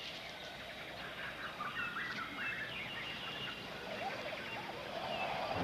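Wild birds chirping: short, high, falling calls repeated over and over, with a few lower calls about four seconds in, over a faint steady background hiss.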